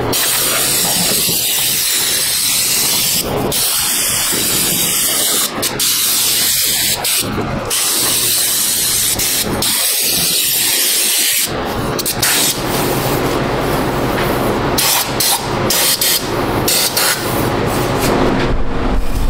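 Air-powered undercoating spray gun hissing as it fogs Fluid Film rust-proofing oil. It sprays in one long steady burst for the first eleven seconds or so, then in short on-and-off squirts. Shop fans hum steadily underneath.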